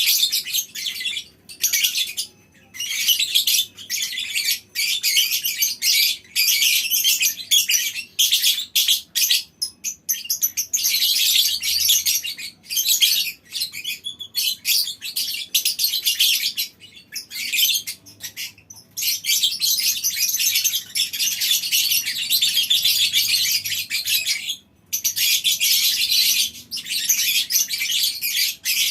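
A colony of lovebirds chattering in long, high-pitched runs of rapid calls (the drawn-out 'ngekek' chatter), broken only by brief pauses.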